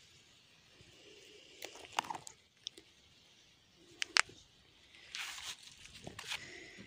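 Fresh parsley stems being snapped and pulled by hand: sharp crisp snaps about two seconds in and, loudest, about four seconds in, then rustling of the leafy plants near the end.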